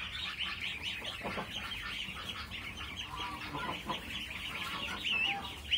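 A flock of ducklings peeping continuously, many short high calls overlapping, with a few lower calls about three seconds in and a louder call near the end.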